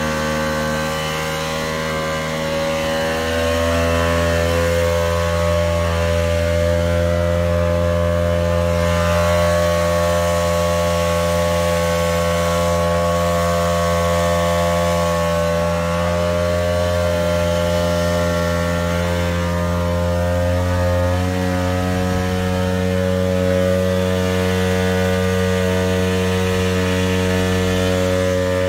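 Tohatsu V20ES portable fire pump engine running steadily under load while pumping a hose jet. Its note shifts slightly a few seconds in and again about two-thirds of the way through.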